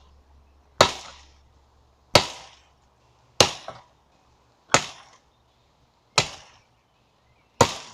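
An axe chopping into a tree trunk: six sharp strokes at a steady pace, about one every second and a half.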